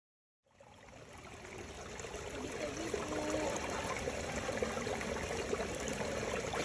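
Steady rushing of a stream's flowing water, fading in from silence about half a second in and settling at an even level.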